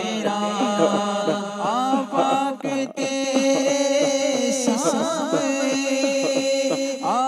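A male voice singing a naat, an Islamic devotional song, with melismatic slides and bends, over a steady held drone of chanted zikr.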